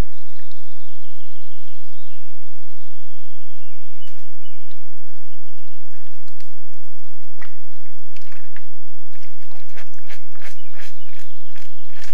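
A cow moose and her calf wading and drinking in a muddy puddle. Hooves squelch in the mud, and water sloshes and splashes in a string of short wet clicks. The clicks come thicker in the second half.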